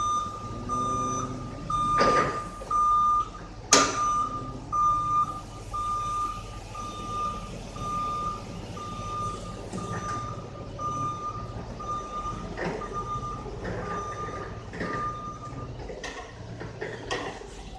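A Crown reach truck's warning alarm gives a steady run of beeps, all at one pitch, while the truck works; the beeping stops about 16 seconds in. A sharp knock sounds about four seconds in.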